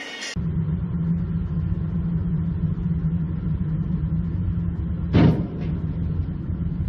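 Steady low rumble of a motor vehicle's engine and road noise, with a brief louder thump about five seconds in.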